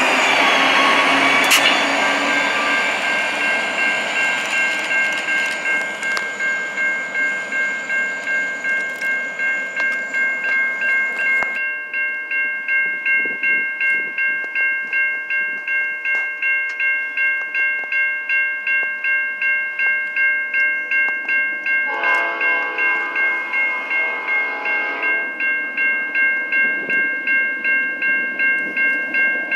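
Railroad grade-crossing bell ringing steadily at about two strokes a second as a freight train passes and moves away, its rumble fading over the first dozen seconds. Near the end, the train's horn sounds for about three seconds in the distance.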